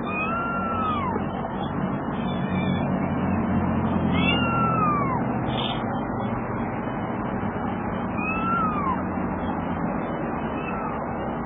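Young kitten meowing for its mother: three drawn-out cries about four seconds apart, each rising then falling in pitch, and a fainter fourth near the end, over a steady background hiss.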